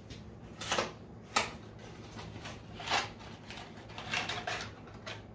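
A Stihl saw chain being pulled out of its small cardboard box: scattered light rustles and clicks of cardboard and chain links being handled.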